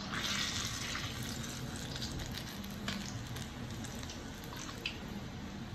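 Doughnuts deep-frying in hot oil in a wok: a steady sizzle that surges louder in the first second as a slotted spoon stirs and turns them. Two light clicks come about halfway and near the end.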